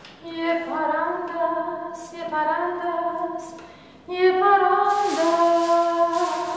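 A woman singing two long, held phrases with vibrato and no clear accompaniment, with a short break about four seconds in. A broad hiss joins in for the last second and a half.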